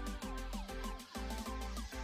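Background music: an electronic track with a steady beat and a repeating bass line.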